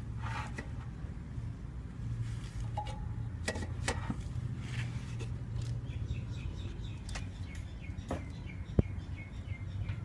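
Bird chirping in quick repeated notes over a steady low hum, with scattered small clicks and one sharp knock near the end.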